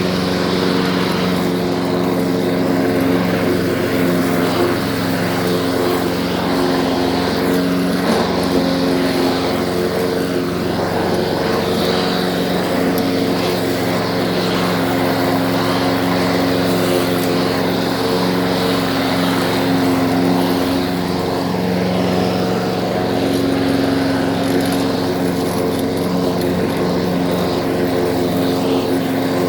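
Lawn mower's small petrol engine running steadily at a constant speed, its pitch wavering only slightly.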